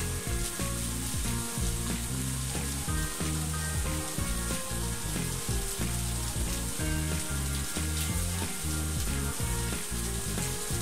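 Batter-coated potato chops deep-frying in hot oil, a steady sizzle of bubbling oil around them. A background tune with held low notes plays underneath.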